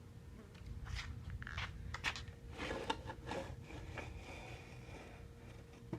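Rustling, crinkling and light clicks of old papers and small items being handled and rummaged through in a wooden drawer, with the densest crinkling in the middle of the stretch.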